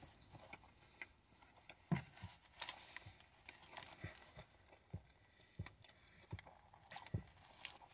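Faint chewing of a bite of crispy chicken sandwich: scattered soft mouth clicks and small crunches every half second or so.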